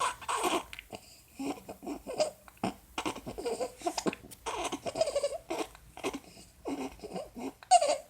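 Baby vocalizing and fussing in short, breathy bursts several times a second, with the noisy, squeaky breathing of stridor caused by laryngomalacia.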